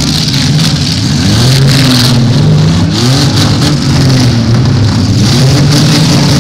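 Several demolition derby cars' engines running and revving together, their pitch rising and falling again and again.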